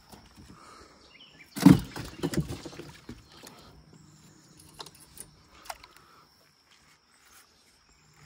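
A freshly unhooked catfish landing in the boat: one sudden heavy thud about a second and a half in, followed by a few weaker knocks as it flops, then small clicks of the trot line being handled.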